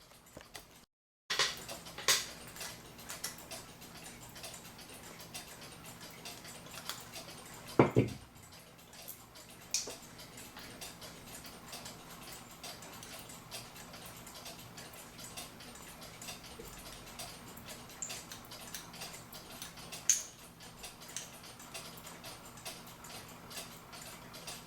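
A clock movement being unscrewed and taken apart by hand: scattered light clicks and taps of a small screwdriver and plastic gear parts, with a louder knock about eight seconds in and a sharp click near twenty seconds.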